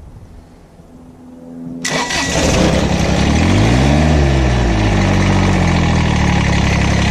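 Kubota BX1860's small three-cylinder diesel engine being started after a filter change: it cranks briefly, fires about two seconds in, revs up, then settles to a steady idle.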